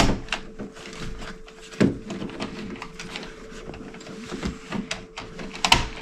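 Clicks, scrapes and knocks of a wall dimmer switch and its wires being pushed by hand into an electrical switch box, with louder knocks at the start, about two seconds in and near the end, over a faint steady hum.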